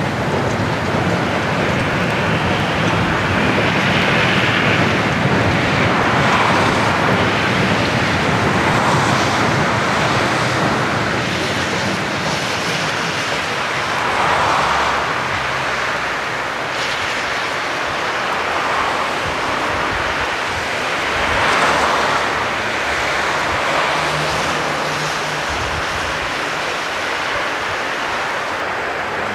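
A diesel-hauled freight train's loaded wagons rolling past and away, a steady rushing rumble that swells and eases several times, with a faint low engine hum underneath.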